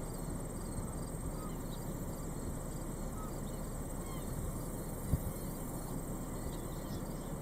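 Wind buffeting the microphone as a steady low rumble, with one brief thump about five seconds in. Underneath, an insect trills steadily at a high pitch, and a few faint short chirps come through.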